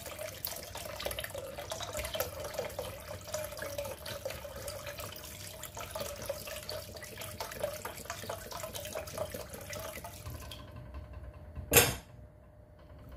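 Chicken broth being poured from a carton into a pot of curry and coconut milk: a steady pouring splash that stops about ten and a half seconds in. About a second later there is a single sharp knock, the loudest sound.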